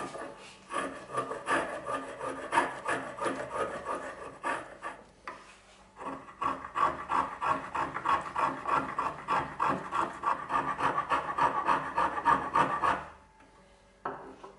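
Small brass finger plane taking quick short strokes across a block of wood, each stroke a brief scrape, about three or four a second. It pauses briefly about five seconds in and stops near the end, with one last stroke after.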